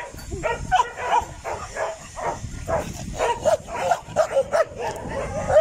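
A dog barking aggressively in quick, repeated barks, about three a second, while it attacks a person.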